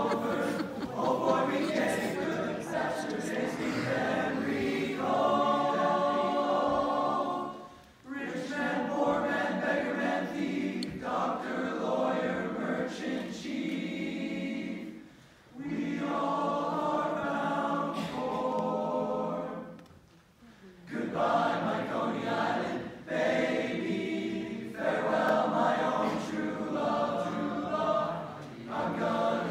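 Teenage boys' choir singing in harmony without accompaniment. The singing goes in phrases, with short breaks about eight, fifteen and twenty seconds in.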